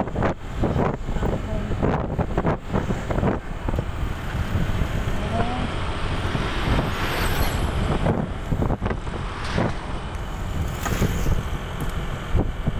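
Riding on a motorcycle: wind buffeting the microphone in gusts over the steady noise of the engine and tyres on the road.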